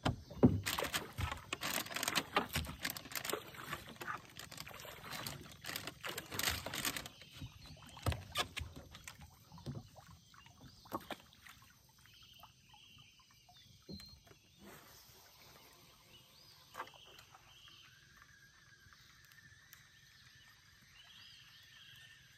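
Water splashing and knocking around a small boat, busy and loud for about the first seven seconds, then dying away to a few scattered knocks. After that it is quiet, with faint short animal calls and a thin steady buzz starting in the last few seconds.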